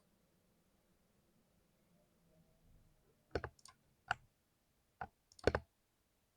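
Keys on a 60% keyboard pressed a few times, a handful of short, deep-sounding clacks with uneven gaps that begin about three seconds in, after quiet.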